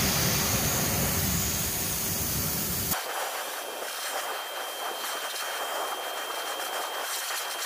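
Pressure-washer jet hissing as it rinses a car wheel and tyre. About three seconds in the sound changes abruptly, losing its low rumble and turning to a thinner, quieter hiss with a faint steady whine.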